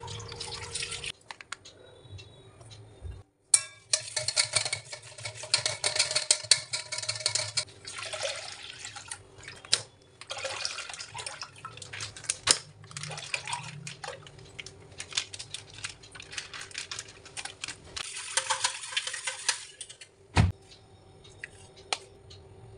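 Buttermilk poured into a stainless steel bowl, then a wire balloon whisk beating it, its wires rattling and scraping against the steel in long bouts with short pauses. A single sharp knock comes about 20 seconds in.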